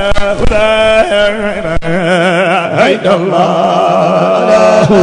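A man's solo voice chanting a Sufi zikr through a microphone and PA, with ornamented melismatic lines and wavering held notes. A steady lower note runs beneath from about two seconds in.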